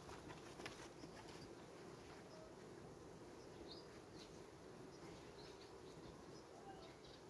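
Faint, steady buzzing of honeybees flying around the hives, with a few short, high chirps over it.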